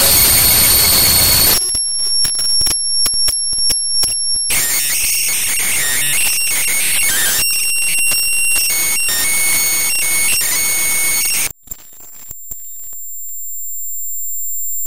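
Experimental electronic soundtrack: harsh static noise laced with high steady tones, breaking off about a second and a half in into stuttering, chopped high electronic tones and clicks. Near the end a single high whine swells steadily louder.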